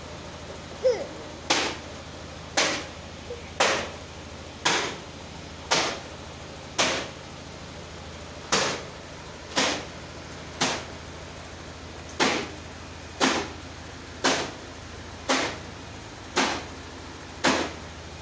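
Rope baby swing creaking in a steady rhythm as it swings, a short sharp creak about once a second, with a couple of brief pauses.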